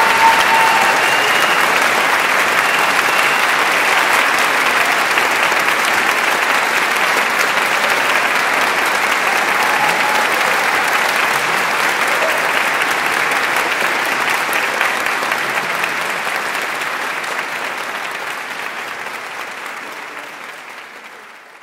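Concert hall audience applauding steadily, the clapping fading away over the last five or six seconds.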